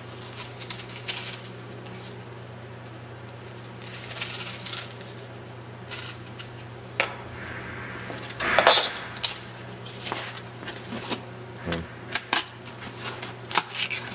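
Knife blade scoring foil-faced foam insulation board along a wooden straightedge: scattered scrapes, foil crinkles and small clicks, loudest about eight and a half seconds in. Near the end the cut foam piece is handled.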